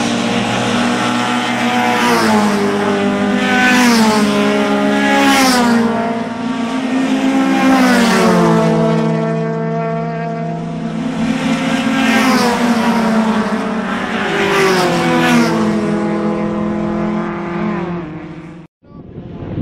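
Several saloon race cars running hard as a pack goes by. Their engine notes fall in pitch several times, with short rushes of louder noise as cars pass close. The sound cuts off sharply about a second before the end.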